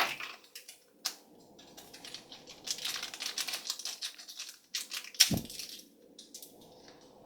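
A small plastic bag being torn open and crinkled by hand, in irregular clusters of crackles, with a light knock about five seconds in.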